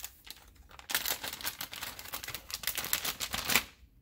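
Clear plastic clamshell pack of soft plastic fishing baits being handled, crackling and clicking in a dense run from about a second in until just before the end.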